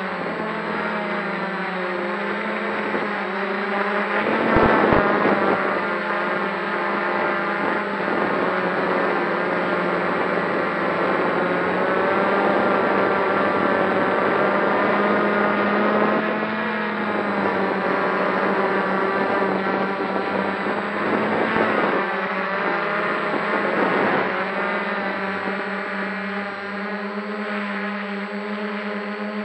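Multirotor drone's electric motors and propellers humming steadily as heard from its onboard camera, carrying a heavy payload, the pitch drifting up and down as the motor speeds change. A few brief louder rushes of noise come through, about four to six seconds in and again around twenty-one and twenty-four seconds.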